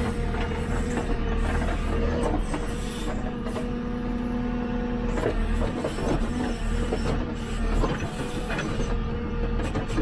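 JCB 3CX backhoe loader's diesel engine running under load, heard from the operator's cab, with a steady hydraulic whine as the backhoe arm works. The whine stops about halfway through, and a few knocks and clanks from the arm and bucket follow.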